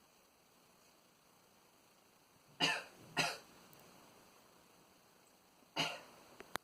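A man sneezing three times: two sharp sneezes in quick succession, then a third about two and a half seconds later. A short click follows just after the last one.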